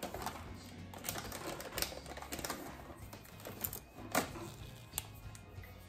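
Irregular light clicks and taps of hands working with small plastic seed-starting trays and seeds, over music in the background.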